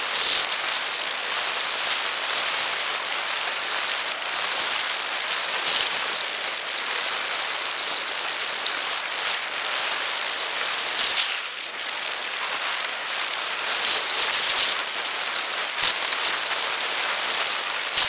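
Steady rushing hiss of wind and rolling noise on a camera carried along a path, with several short, louder crackles and knocks scattered through it.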